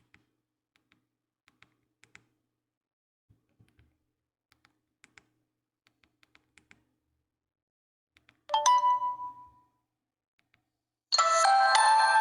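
Nokia 8000 4G phone playing its default ringtones through its speaker. Faint clicks for the first eight seconds, then a brief ringtone preview that breaks off and dies away within about a second; about eleven seconds in, the next ringtone starts loudly.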